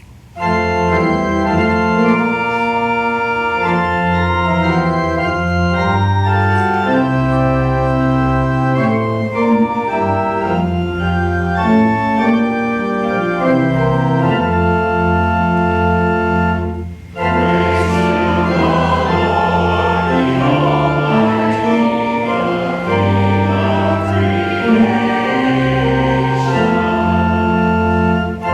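Church organ playing a hymn in sustained chords; after a short break about two-thirds of the way through, the congregation joins in singing the hymn with the organ.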